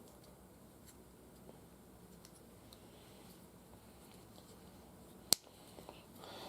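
Small plastic building-block parts being handled and fitted together: faint scattered clicks and one sharp snap about five seconds in, then a soft rustle near the end.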